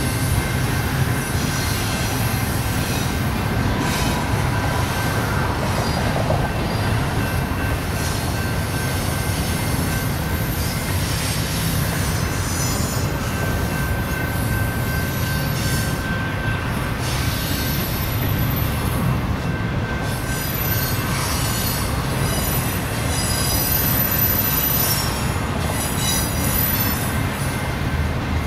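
Double-stack intermodal freight train's well cars rolling past: a steady rumble of steel wheels on rail with thin, high-pitched wheel squeal, stronger in the second half.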